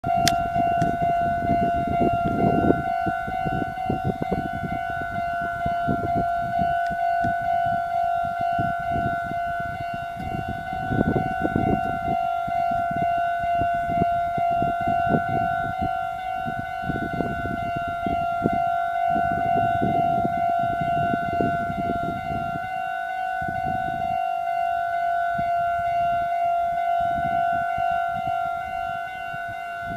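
Japanese railway level crossing alarm sounding its warning tone without a break, with irregular low rumbling underneath.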